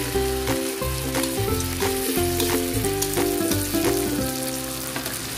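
Eggplant omelette (tortang talong) sizzling as it fries in hot oil in a wok. Background music with a steady beat and bass plays over it.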